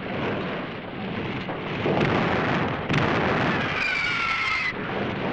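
Rumbling, explosion-like sound effects, with a sharp jolt about three seconds in and a falling, whistling tone about a second later.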